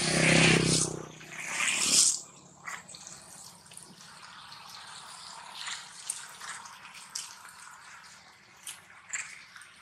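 A vehicle passing on a wet road: tyre hiss with a low engine hum swells and fades out about two seconds in. Faint scattered drips and ticks follow.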